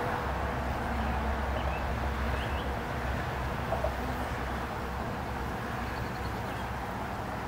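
Honeybees humming steadily around an open hive, over a low, steady rumble.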